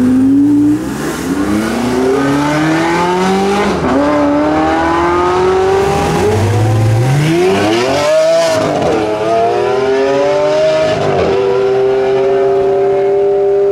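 Supercar engines accelerating hard, the note climbing and dropping back at a run of quick upshifts. In the second half a Lamborghini Aventador SV's V12 pulls away, rising and then holding a steady high note for the last few seconds.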